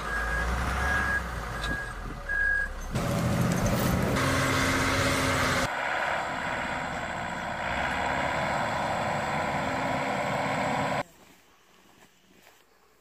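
Heavy vehicle engines running, with a reversing alarm beeping about twice a second for the first few seconds over a snow-chained wheel loader's engine. The engine noise stops suddenly about eleven seconds in, leaving only faint sounds.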